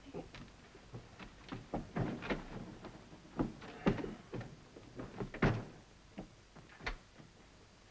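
Irregular knocks and clunks of a door being opened and shut and objects being handled, about a dozen in all, the loudest about five and a half seconds in.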